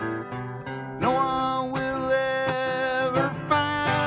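Acoustic guitar strummed about twice a second, with a harmonica in a neck rack playing long held notes over it from about a second in.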